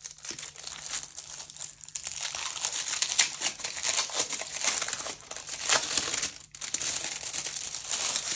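Plastic wrapping on a planner crinkling loudly as it is handled and pulled open, a dense crackle that drops out briefly about six and a half seconds in.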